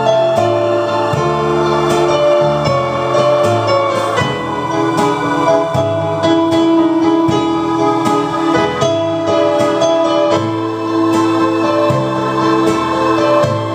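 Roland digital grand piano being played: held notes and chords over a bass line that moves every second or so.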